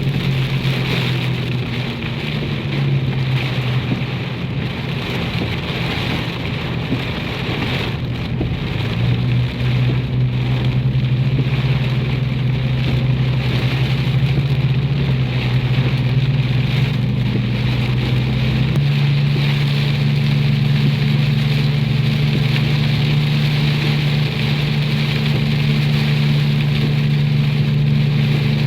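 A car driving through heavy rain: rain drumming on the vehicle mixed with the engine's steady low hum. The hum changes pitch about a third of the way in and again about two-thirds of the way in, as the car's speed changes.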